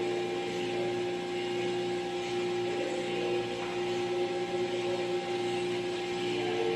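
Steady hum and whine of a compressed-sawdust core plug press's hydraulic power unit running, an unbroken machine noise with a constant tone over a hiss.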